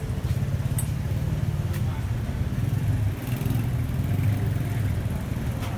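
Street traffic: a steady low rumble of engines from tuk-tuks and cars moving close by.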